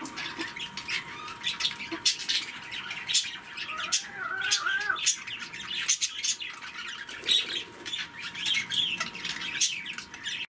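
A flock of budgerigars chattering: a continuous jumble of short chirps and warbling calls. It breaks off abruptly just before the end.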